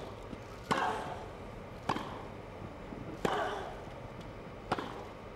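Tennis ball struck back and forth by racket strings in a baseline rally on a grass court: four sharp hits, one every second and a half or so.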